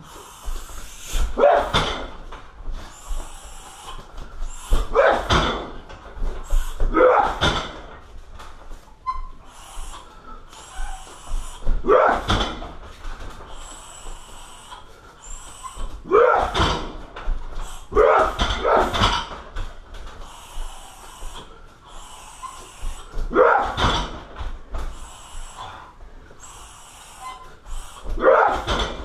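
Kicks and strikes landing hard on a car tyre every few seconds, often two in quick succession, each with a sharp grunt from the fighter.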